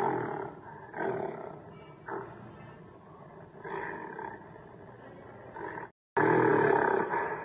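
Wild animal calls: a string of separate calls about a second apart, then, after a brief cut, a louder call held for about a second.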